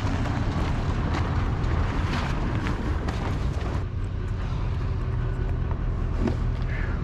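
A vehicle engine running steadily with a constant low rumble.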